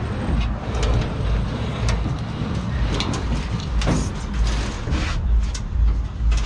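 A large rug being dragged and shuffled into place across a van's metal cargo floor: rustling and scraping with irregular knocks and low thumps.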